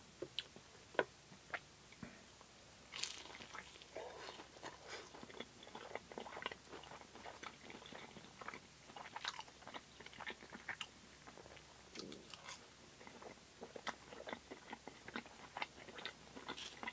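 Close-miked chewing of fried food, fries and breaded plant-based fish fillet: soft, irregular crunches and small wet mouth clicks.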